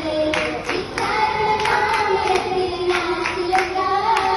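A group of girls singing an Oppana song in unison, accompanied by rhythmic hand claps, about three claps a second.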